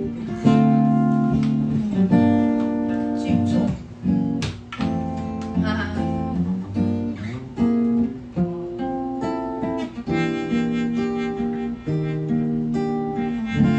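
Acoustic guitar playing chords, with the chord changing about every second or two.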